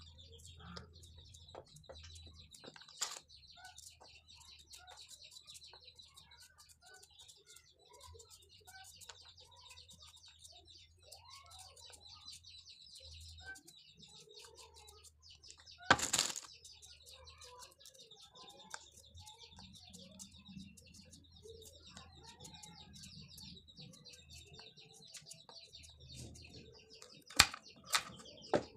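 Quiet vegetable preparation: a few sharp knocks of a knife and vegetables on a cutting board, the loudest about halfway through and two close together near the end, over a steady high-pitched chirping in the background.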